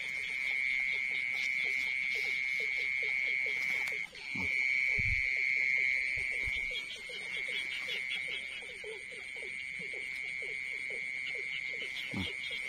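Night chorus of frogs calling in short notes repeated several times a second, over a steady high-pitched insect trill. A few low thumps come about four to five seconds in.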